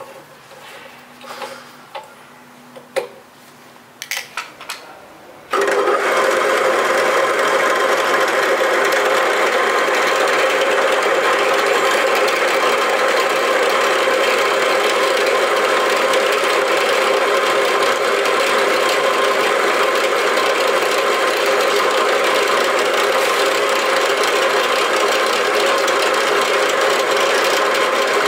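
A few clicks and knocks as a wooden board is set in a machine vise, then about five and a half seconds in a bench drill press switches on and runs with a steady hum. Its chuck spins a hot-melt glue stick pressed into the board, and the glue softens from the friction.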